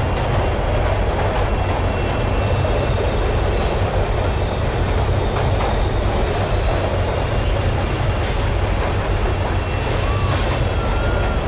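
New York City subway train running, heard from inside the car: a steady rumble of wheels on track. Thin, high wheel-squeal tones join in during the second half.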